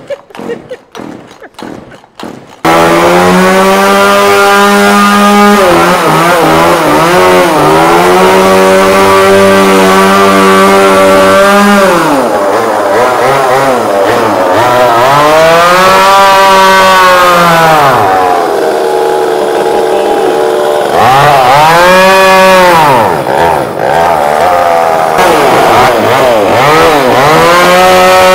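Two-stroke chainsaw pull-started, catching after a few pulls about two and a half seconds in, then running loud at high revs. Its pitch sags and climbs back again and again as the chain cuts into the core of an old truck radiator.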